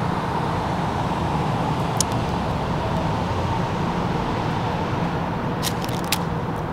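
Steady hum of nearby road traffic, with a light click about two seconds in and a few more near the end as the box and pin card are handled.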